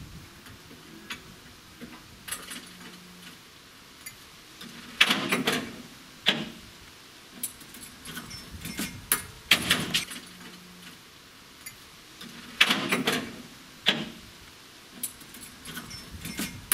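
Metal clanking and rattling as the chains and ratchet straps holding a tractor down are undone on a steel trailer deck. Several sharp clanks, the loudest about five, nine and a half and twelve and a half seconds in, each followed by a brief rattle of chain.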